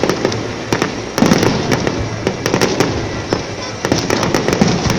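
Fireworks display: many bangs and crackling bursts going off in quick succession, overlapping one another, with denser volleys about a second in and again near four seconds.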